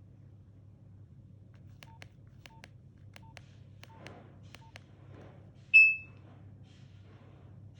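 Nokia 1650 keypad being pressed: five short key beeps about two-thirds of a second apart, each with a button click. Near the end comes one brief, much louder, higher-pitched beep.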